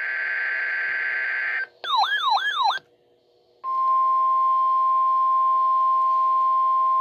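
NOAA Weather Radio emergency alert signal for a weekly test. The buzzy digital header data tone ends about two seconds in, a short warbling siren-like tone follows with about three sweeps, and after a moment's silence the steady 1050 Hz warning alarm tone comes on and holds.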